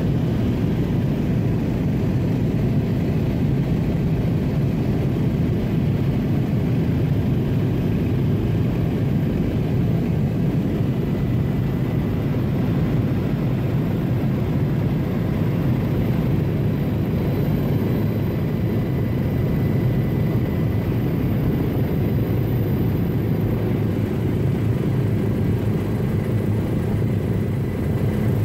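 Steady cabin noise of a turbine helicopter in flight: a dense, unbroken low rumble of rotor and engine, with a faint thin whine above it.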